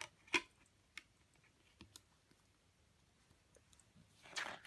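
A few sharp plastic clicks in the first two seconds, the loudest about a third of a second in, then a short rustling scrape near the end: a CD being handled and taken out of its album case.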